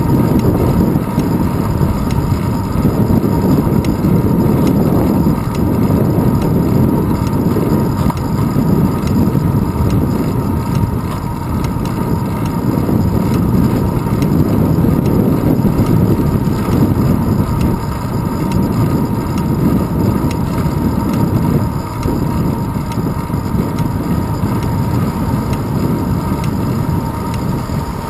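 Wind buffeting and road rumble on a handlebar-mounted GoPro Hero 2 as the bicycle rolls along an asphalt road: a loud, steady low rumble that swells and dips.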